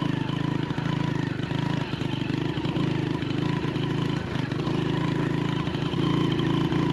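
Small Honda Win motorcycle engine running steadily with a fast, even beat.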